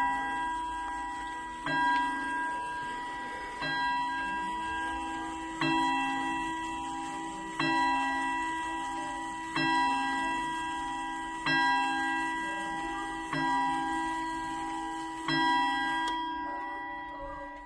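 Bucherer triple-chime clock striking the hour: a slow series of single bell-like strikes about two seconds apart, nine in all, each ringing on and fading into the next. The ringing dies away at the end.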